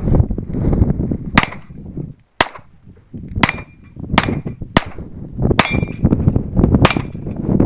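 Handgun shots fired at the steel plates of a dueling tree, about seven shots spaced roughly a second apart. Several are followed by the brief ring of a hit steel plate.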